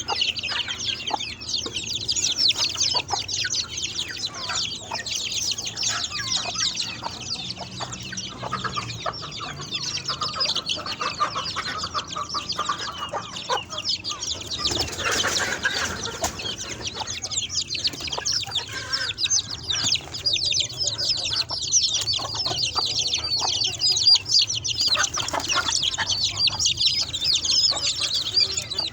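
A flock of chickens calling all at once: a dense, continuous chatter of high peeps and clucks.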